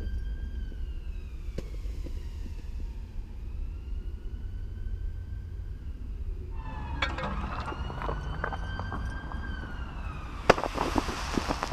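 A siren slowly rising and falling in pitch over wind rumble on the microphone. About seven seconds in, a sudden hissing, crackling rush as elephant's-toothpaste foam jets up out of the flask, with a sharp crack near the end.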